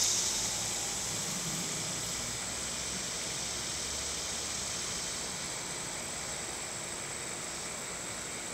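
Steady outdoor background hiss with a faint low rumble. A louder high-pitched hiss fades away in the first second.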